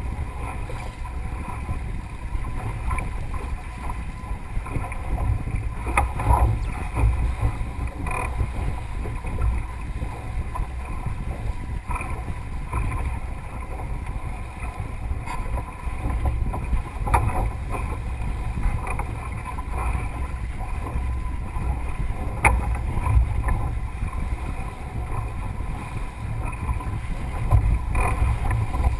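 Wind buffeting the microphone and water rushing along the hull of a Melges 24 keelboat under sail, with sharp knocks every few seconds as the boat works through the chop.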